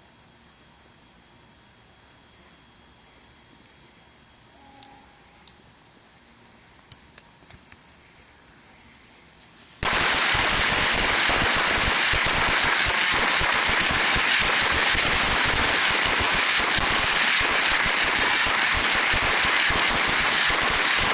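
A string of 500 Black Cat firecrackers going off as a dense, continuous rapid crackle of loud bangs, starting abruptly about ten seconds in. Before that it is quiet apart from a few faint scattered clicks.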